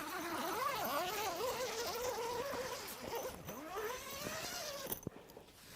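A tent zipper being pulled open along the inner panel of a cotton air tent: a buzzing rasp whose pitch rises and falls with the speed of the pull, stopping about five seconds in with a click.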